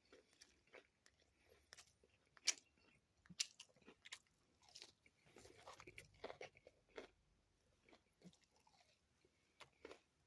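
Faint, close sounds of someone eating fried fast food: irregular crisp bites and chewing with mouth clicks, the sharpest crunch about two and a half seconds in.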